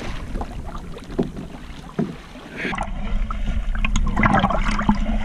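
Sea water sloshing and splashing against a kayak's hull and the low-mounted camera's housing. The sound turns muffled a little over halfway through as the camera dips toward the surface, and the splashing grows louder near the end.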